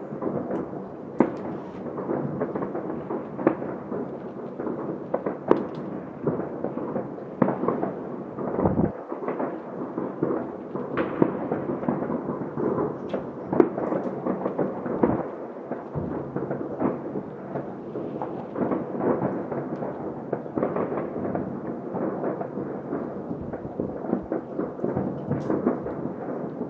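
Many distant fireworks and firecrackers going off at once all over a city: a continuous, dull rumble of overlapping booms and crackles, with sharper single bangs standing out every second or so.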